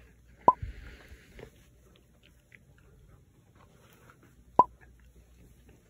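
Quiet room with faint rustling of fleece blankets being adjusted around a sleeping toddler, broken by two short sharp clicks about four seconds apart, the first about half a second in.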